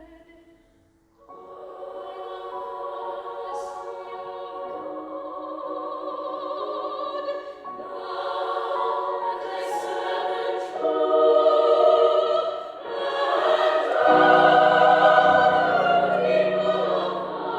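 A girls' choir singing a classical art song, coming in about a second in and growing louder through the later phrases.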